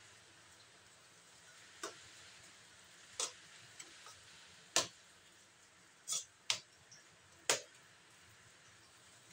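A metal spoon clicks against a stainless steel tray while spreading and pressing sticky rice: about six sharp ticks at uneven intervals, the loudest near the middle.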